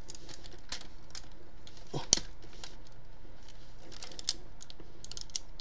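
Parts of a Transformers MP-10 Optimus Prime toy figure clicking and tapping as they are handled, pushed and latched into place by hand, with a louder click about two seconds in.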